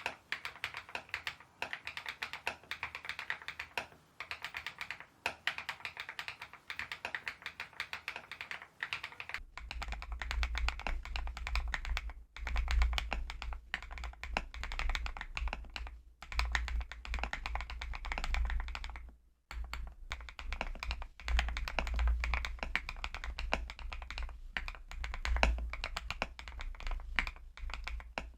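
Fast, continuous typing on a YUNZII B68 mechanical keyboard with a plastic housing and MOG-profile keycaps, a dense run of keystroke clacks broken by a few short pauses. About a third of the way in, a strong low rumble sets in beneath the keystrokes.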